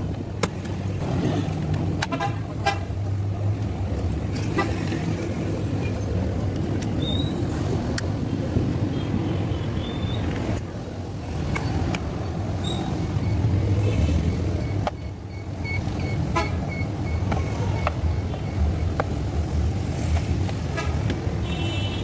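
Scattered clicks and knocks of plastic steering-column trim being handled and pried loose, over a steady low hum.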